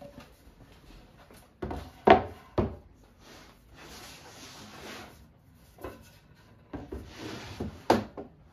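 A wooden board handled on a wooden saw table: a few sharp wood-on-wood knocks, a scraping slide in the middle, then more rubbing and a loud knock near the end as the board is set against the fence.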